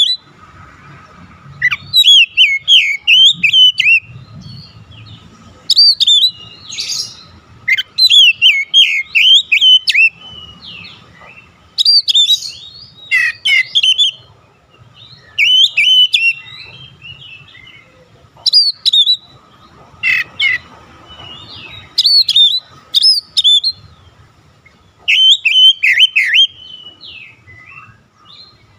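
Oriental magpie-robin (kacer) singing loud, fast phrases of whistles and warbling sweeps, each a second or two long, repeated every few seconds with short pauses between.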